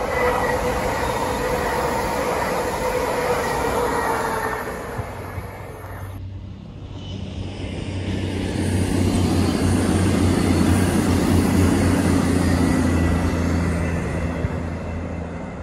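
A Lumo Class 803 electric train passing at speed, with a whine that falls slightly in pitch. Then, after a cut about six seconds in, a CrossCountry Voyager diesel multiple unit passes, its underfloor diesel engines giving a steady low drone that fades near the end.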